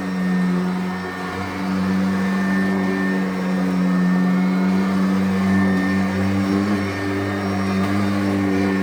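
Kirby Avalir upright vacuum with a ten-blade aluminum fan from a Sanitronic running steadily while vacuuming, a steady motor drone whose pitch shifts slightly now and then. The metal fan gives it what the owner calls a vintage sound.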